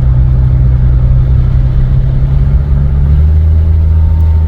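Car engine and exhaust droning steadily, heard from inside the cabin while driving. About three seconds in, the drone drops lower and grows stronger. The exhaust manifolds are cracked and the pipe is patched with tape.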